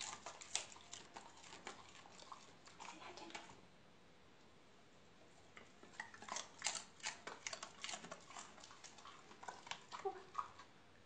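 Dogs' claws clicking and tapping lightly on a hardwood floor in scattered runs, with a pause of about two seconds in the middle.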